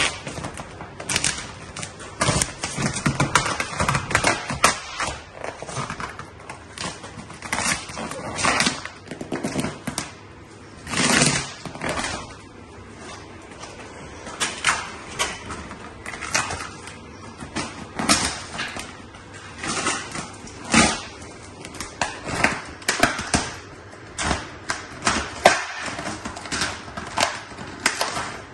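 Marine-grade cast vinyl wrap film crackling and rustling in irregular bursts as it is peeled back off a boat hull, stretched and smoothed down by hand.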